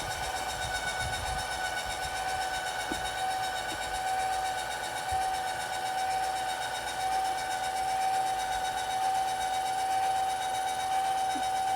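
Electric trailer tongue jack motor running steadily, a constant whine, as it lowers the trailer tongue and truck back down.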